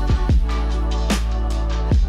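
Electronic background music with a deep sustained bass line and punchy kick drums that drop in pitch.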